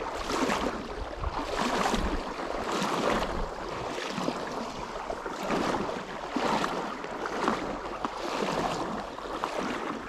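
Wading steps through a shallow gravel-bottomed stream: water sloshing and swishing against the legs about once a second, over the steady flow of the stream.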